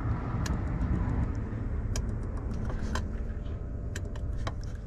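A car engine running steadily, with a few sharp light clicks and taps over it.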